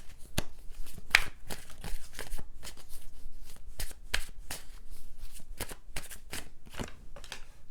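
Tarot cards being shuffled by hand: a quick run of papery riffles and card clicks, repeated without pause.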